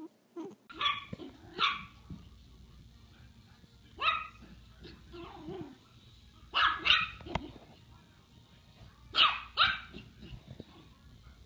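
Small puppy barking in short, high-pitched yaps: about seven barks in quick pairs or singly, a couple of seconds apart.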